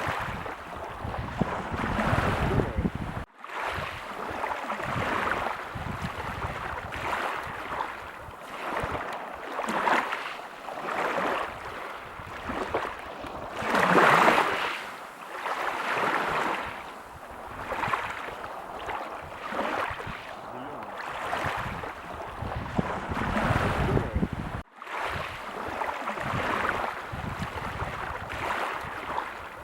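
Ocean waves breaking on a beach: a continuous wash of surf that surges and ebbs every couple of seconds, with its loudest wave about halfway through. There are two momentary dropouts, one early and one near the end.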